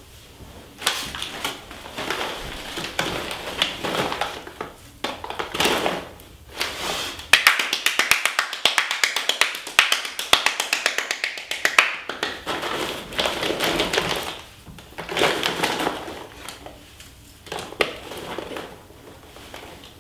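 Two people clapping their hands, a quick dense patter for several seconds in the middle. Other irregular, shorter sounds come before and after it.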